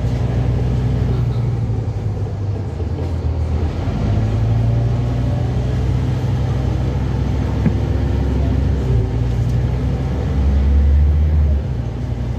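Scania N230UB double-decker bus's five-cylinder diesel engine running as the bus drives, heard from the upper deck as a steady low drone. The engine note shifts a few times, swelling to a louder, deeper drone for about a second near the end before dropping back.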